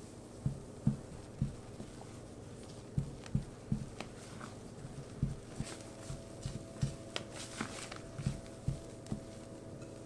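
Rubber spatula folding flour and cocoa into thick whipped-egg sponge batter in a glass bowl: a run of soft, irregular thumps, about two a second, with a few light clicks of the spatula against the glass around the middle.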